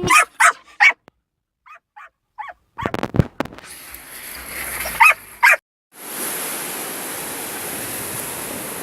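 A dog barks several times, some barks loud and some fainter, with a few thumps about three seconds in. From about six seconds in, a steady rush of wind and surf takes over.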